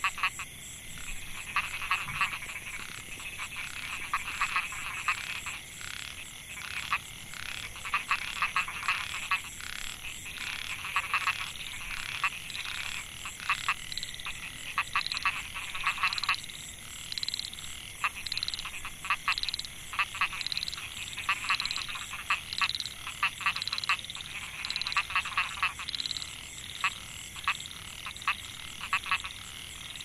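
Chorus of Microhyla pulchra narrow-mouthed frogs calling, many overlapping trains of rapid pulses. A steady high-pitched hiss runs beneath them.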